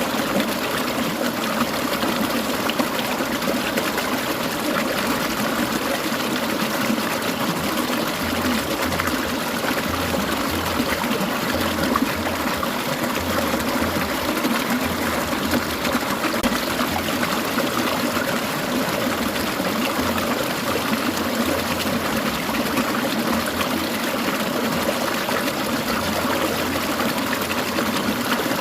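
Clear mountain stream trickling and babbling steadily, with an even, unbroken rush of water.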